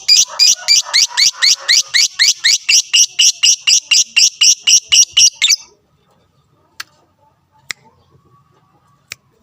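Lovebird's long, rapid chattering song (ngekek): a loud run of shrill chirps at about five a second that stops abruptly a little past halfway, followed by a few faint sharp clicks.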